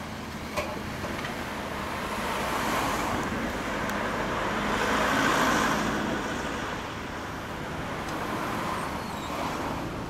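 Road traffic: vehicles driving past, the tyre and engine noise swelling to a peak about five seconds in and then fading.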